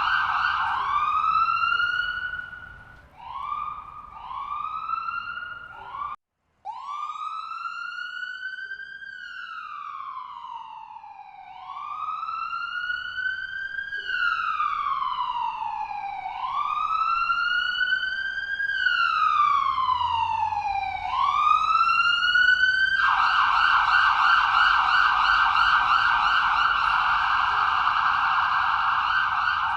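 Electronic ambulance siren cycling through its modes. Short rising whoops are followed by a brief cut-out about six seconds in, then a slow wail rising and falling every two to three seconds, switching to a rapid yelp about 23 seconds in.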